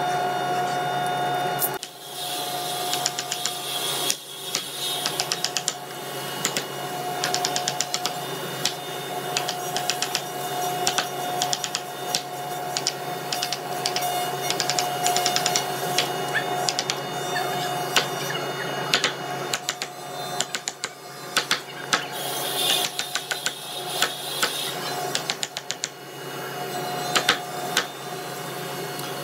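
Wood chisel being struck in quick runs of light, sharp taps as it cuts a notch into a hardwood board, over a steady background hum.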